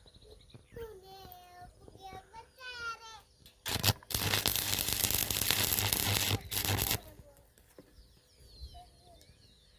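Stick (rod) electric arc welding: the arc strikes with a short burst, then crackles steadily with a low mains hum for about two and a half seconds. It breaks off briefly and crackles for another half second before the arc is broken.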